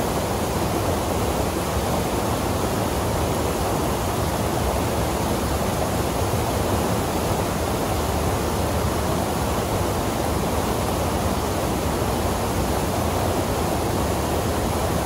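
Waterfall and river rapids rushing steadily, a small cascade pouring into a rock pool.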